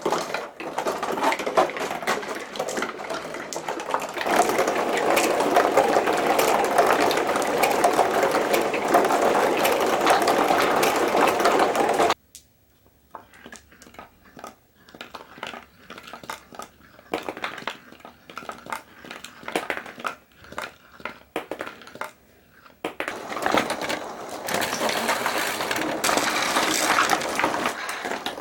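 Many glass marbles rolling and clacking against each other and the track of a marble run, a dense continuous rattle. About twelve seconds in it cuts off abruptly to scattered clicks of a few marbles, then builds back to a dense rattle.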